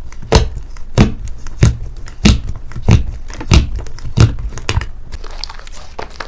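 Fingers pressing into thick white slime in a clear tub, giving a sharp sticky pop about every two-thirds of a second, seven or eight in a row. About five seconds in, the pops stop and fainter crackles follow as the slime is pulled and stretched.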